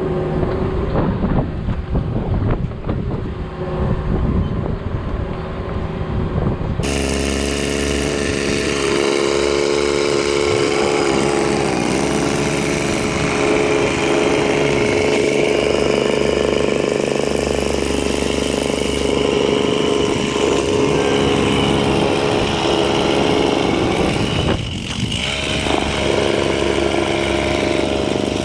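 Heavy-equipment engine running at a worksite, with irregular knocks over the engine noise for the first several seconds. After a cut, the engine runs steadily, its pitch dipping briefly about twelve seconds in.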